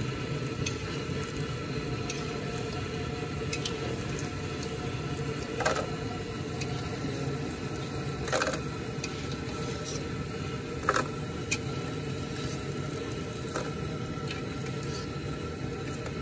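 Pempek deep-frying in hot oil in an aluminium wok: a steady sizzle. A few sharp clicks of the spatula against the wok come through as the pieces are stirred and lifted out.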